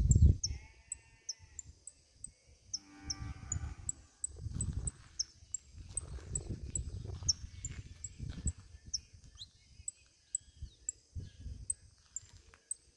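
A farm animal bleating twice in the first few seconds, the second call lower and fuller than the first. A faint, high, even ticking and a few low thumps run underneath.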